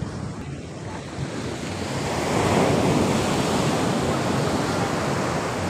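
Sea surf washing onto the beach, a wave swelling to its loudest about two and a half seconds in, with wind on the microphone.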